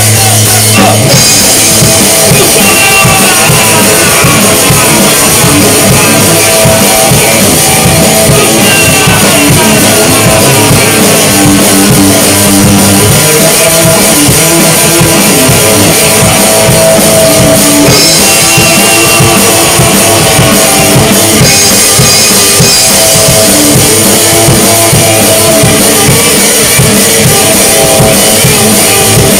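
Rock music from a full band, loud and continuous, with drum kit and guitars and some sliding guitar notes.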